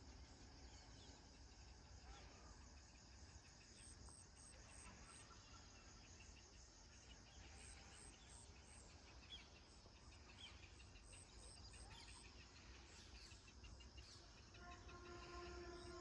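Faint natural ambience of insects chirping in repeated groups of short, high pulses, with a few faint bird calls over a low rumble. Near the end a steady pitched tone comes in.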